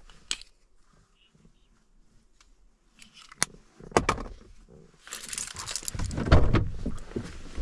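Small clicks and knocks of objects being handled inside a pickup cab, then the driver's door of a Ram pickup unlatching and swinging open about five seconds in, letting in a rush of outside noise, with a heavy thump about a second later.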